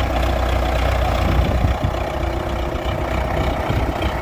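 Tractor diesel engine running steadily and loudly, with a deep low note.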